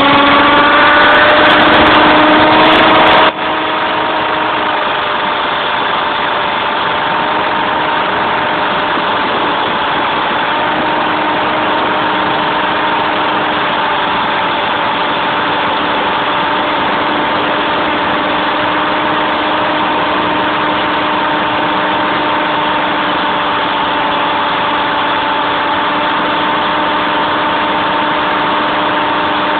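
Align T-Rex 500 electric RC helicopter's motor and rotor, heard from a phone mounted on the helicopter. The motor whine rises in pitch, then about three seconds in drops abruptly in loudness and settles into a steady whine over a constant rushing noise.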